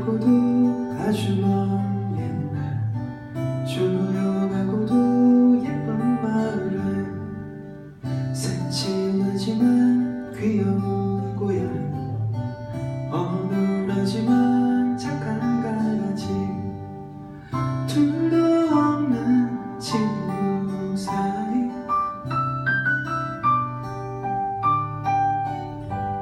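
A live acoustic song: two acoustic guitars strumming and picking chords while a male voice sings the melody, with picked guitar notes standing out near the end.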